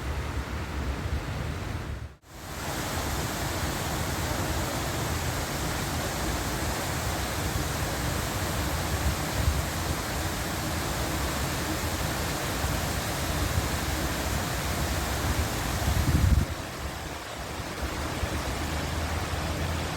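Landscaped garden waterfall: a steady rush of falling water, cut off for a split second about two seconds in, with a short low rumble near sixteen seconds.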